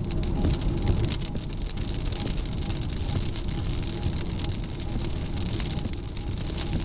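Rain pattering on a car's windshield over steady road and tyre noise, heard from inside the moving car in a thunderstorm.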